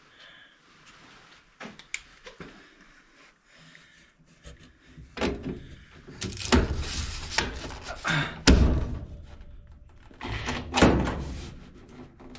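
Cordless drill trying to drive a screw into the furnace's sheet-metal housing in rough spurts, with knocks and thumps of metal against metal as the part shifts and the screw fails to go in. The loudest knock comes about eight and a half seconds in.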